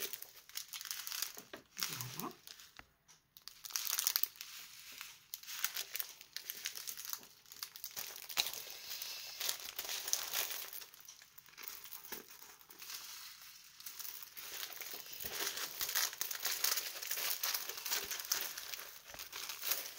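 Plastic and paper packaging of a diamond painting kit crinkling and rustling as it is handled, with irregular crackles throughout.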